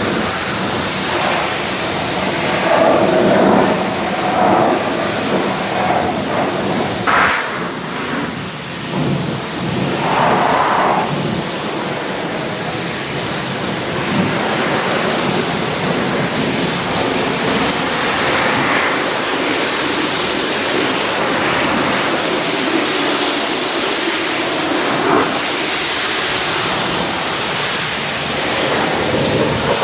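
Pressure washer spraying water on a truck: a loud, steady rushing hiss of spray that shifts in tone as the jet moves over the surface.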